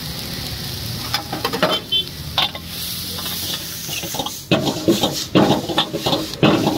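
Noodles and vegetables frying in a black iron wok, sizzling steadily while a steel ladle stirs and tosses them. The scraping and clanking of the ladle against the wok come sparsely at first and turn frequent and loud from about halfway through.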